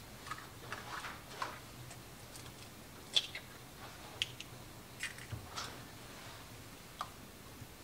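Faint, scattered light clicks and taps of kitchen work with dishes and utensils while pudding ingredients are being combined, with one sharper click about three seconds in.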